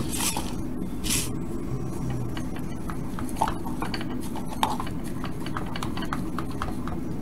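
Small clicks and light taps of thin wire LED leads being handled around a soldered LED cube, two sharper ticks in the middle. There are two short hisses in the first second and a steady low hum underneath.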